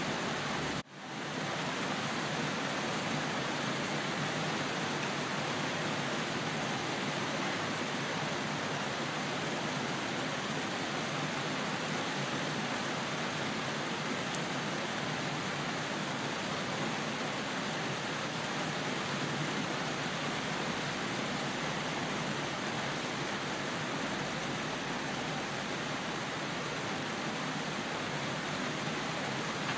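Steady, even rain hiss with no thunder, dropping out for a split second about a second in before carrying on unchanged.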